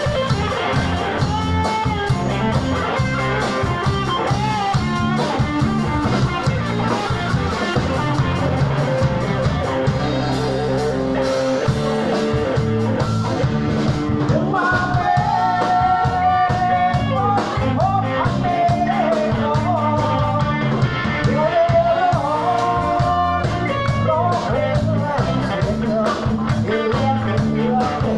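Live rock band playing: electric guitars, bass guitar and drum kit, with a man singing into a microphone.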